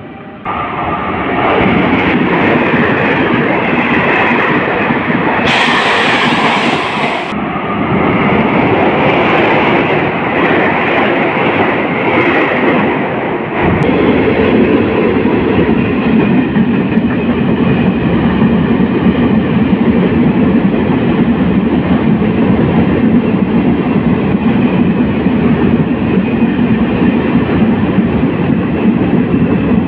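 Taiwan Railway train running through a station, a loud continuous rumble of wheels and running gear. About six seconds in there is a short hiss, and from about 14 seconds the sound changes abruptly to a steadier, deeper rumble.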